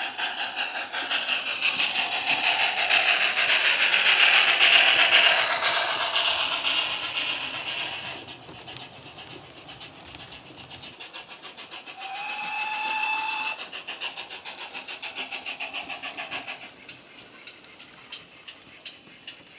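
Sound decoder in a Hornby King class model steam locomotive playing steady, rhythmic steam exhaust beats through its tender speakers as the model runs past, loudest about four to five seconds in and then fading. About twelve seconds in a whistle sounds for about a second and a half.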